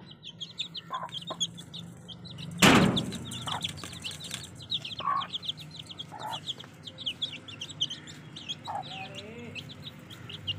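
Aseel chicks peeping constantly in quick high chirps, with the hen giving a few short clucks. A single sharp, loud knock about two and a half seconds in.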